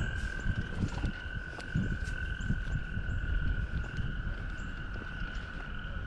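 A chorus of frogs calling from the pond: one unbroken, high-pitched trill that holds steady, over an irregular low rumble.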